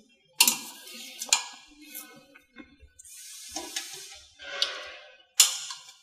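Sharp clicks and knocks of metal parts being handled on the frame of a carpet cutting machine while its foot cable is fitted, four loud ones, with rustling and scraping in between.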